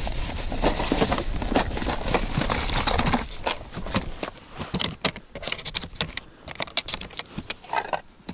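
Plastic ice-fishing tackle box being handled and opened: rustling at first, then a run of light clicks, knocks and rattles from its latches, lid and the tackle inside.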